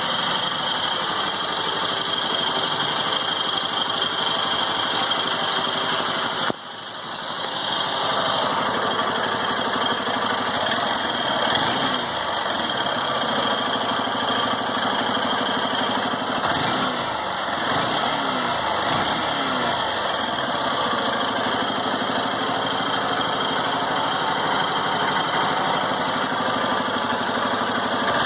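Honda Titan 2018 motorcycle's single-cylinder four-stroke engine idling, blipped up in a few short revs, making the strange engine noise that the owner says comes when the engine is hot.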